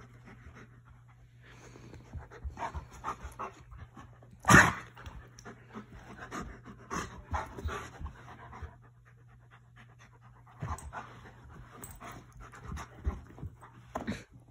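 An Alaskan Malamute and a Newfoundland puppy panting and huffing in irregular clusters as they play-wrestle, with one much louder short sound about four and a half seconds in.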